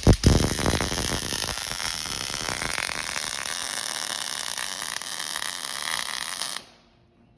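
Electric welding arc crackling steadily as a weld bead is laid, cutting off suddenly near the end. A couple of heavy thumps come at the start.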